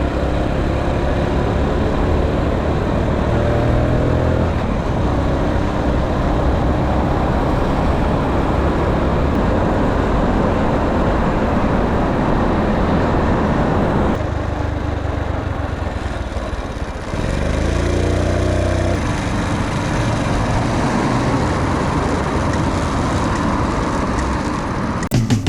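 Honda Little Cub 50cc moped's small four-stroke single-cylinder engine running while riding. Its pitch rises as it accelerates about 2 seconds in and again about 17 seconds in, with a brief easing off about 14 seconds in.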